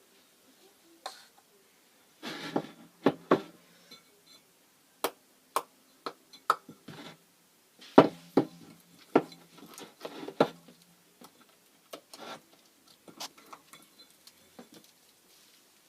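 Irregular clicks, taps and short sticky sounds of homemade slime being mixed and handled, the loudest tap about 8 seconds in and fewer, softer ones near the end.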